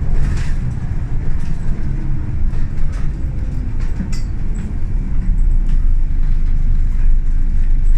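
Scania L94UB single-decker bus on the move, heard from inside the saloon: its diesel engine running steadily under way with road noise and a few short interior rattles and clicks, one clearer about four seconds in.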